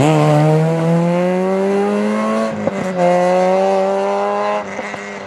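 Peugeot 106 rally car's four-cylinder engine accelerating hard away at full throttle, its pitch climbing steadily through the gears with quick upshifts about two and a half and four and a half seconds in, getting fainter as the car pulls away.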